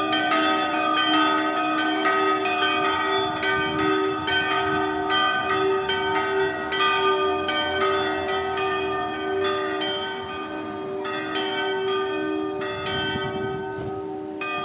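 Several church bells ringing, struck in quick, irregular succession with their tones overlapping and ringing on. The strikes pause briefly about ten seconds in, then resume.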